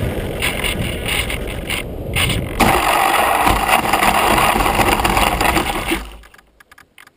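Multiplex Mentor RC plane landing with its motor off, heard from on board: air rushing past as it glides in low, then from about two and a half seconds in a louder rustling scrape as it touches down and slides through the grass, stopping abruptly about six seconds in.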